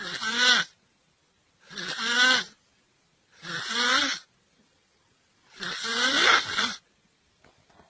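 A person snoring: four loud snores about two seconds apart, each a pitched drone that bends in pitch over a breathy hiss.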